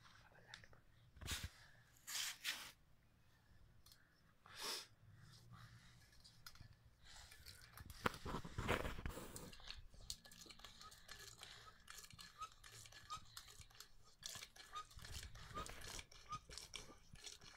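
Handling noise from a homemade PVC-pipe hand pump: scattered knocks and rustles, then quick clicks and short squeaks about twice a second near the end as its iron-rod lever is pumped.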